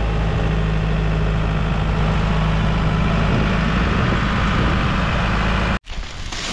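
John Deere farm tractor's diesel engine running steadily with a low hum, cutting off abruptly near the end.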